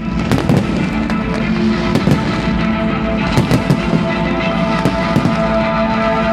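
Fireworks display: repeated sharp bangs at irregular intervals, over loud music with sustained tones.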